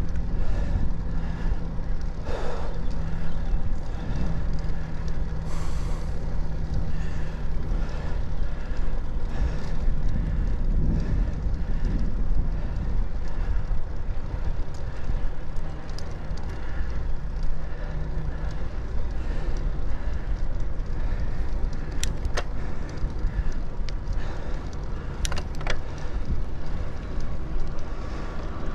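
Steady low rumble of riding along a road with motor traffic, a vehicle's engine hum fading out about two-thirds of the way through. A few sharp clicks near the end.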